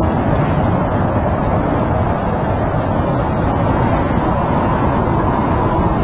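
Snowstorm wind blowing steadily outside a tent, a low, even rushing noise with no breaks.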